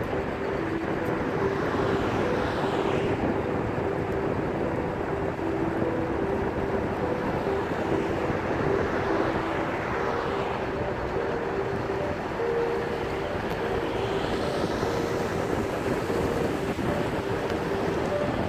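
Road noise from a vehicle driving along a road: steady engine and tyre noise with a low hum. Other vehicles pass by three times, about two seconds in, about ten seconds in and near the end.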